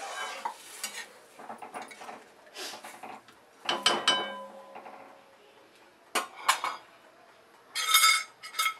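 Long steel ladle stirring a thin curry in a metal kadhai, scraping and clinking against the pan, with a loud ringing clank of metal on metal about four seconds in and more ringing clinks near the end.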